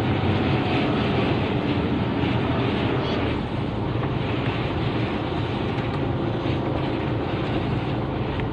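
Truck engine running steadily, heard from inside the cab while driving slowly, with a low even hum and road noise.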